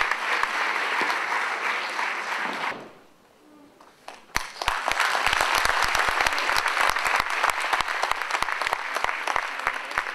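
Audience applause, a dense crowd of handclaps. It drops out briefly about three seconds in and comes back a second and a half later.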